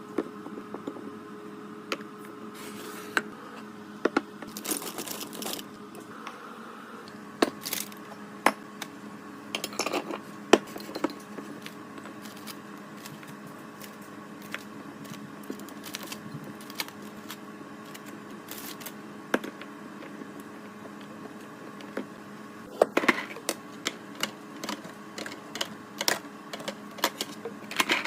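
Plastic food containers and packaging being handled and set down on fridge shelves while restocking: irregular clicks, taps and light rustles, in a few busier clusters, over a steady hum.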